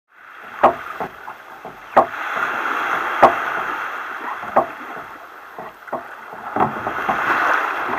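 Seawater rushing and sloshing along a kayak's hull in shallow surf, swelling and easing as waves pass, with irregular sharp knocks on the hull, the loudest about a second apart. Heard close through a deck-mounted camera, so the knocks sound hard.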